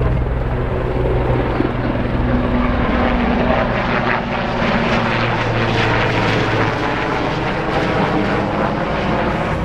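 Sikorsky Sea King-type helicopter flying low overhead, its rotors and turbines making a steady, loud drone. The deepest tones fade after about seven seconds as it moves off.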